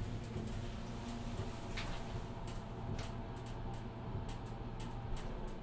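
Steady low hum with scattered faint clicks and ticks: quiet room tone.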